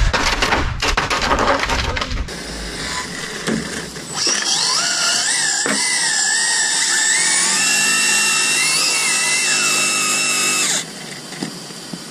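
Electric motor whine from an RC drag car's 7-turn modified motor, several high tones sliding up and down together with the throttle for about six seconds before cutting off suddenly. Before it, a loud rushing noise fills the first two seconds.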